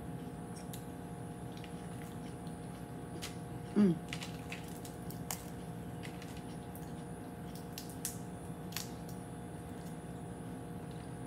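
Boiled crawfish shells being cracked and peeled by hand: scattered small clicks and snaps with wet squishing. A short vocal sound about four seconds in is the loudest thing, over a steady faint hum.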